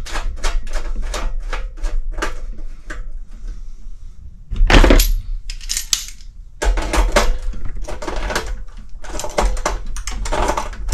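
Hand tools clicking and clattering against a small space heater during reassembly: a quick run of ticks, about five a second, for the first couple of seconds, then louder bouts of metal rattling and handling from about four and a half seconds in.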